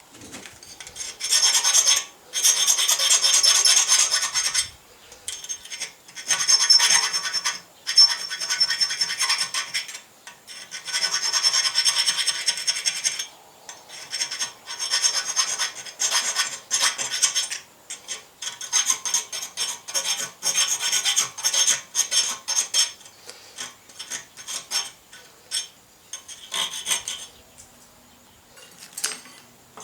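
Hand file rasping across a small forged steel piece in repeated strokes: several long strokes at first, then quicker, shorter ones from about halfway on.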